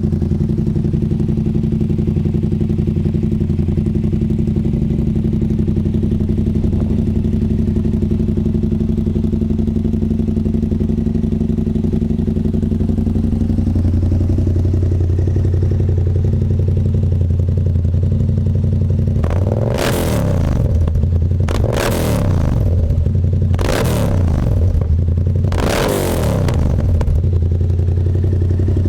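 Yamaha MT-07's 689 cc parallel-twin engine running through a budget full-system aftermarket exhaust. It idles steadily, then is revved in four short throttle blips about two-thirds of the way in before settling back to idle.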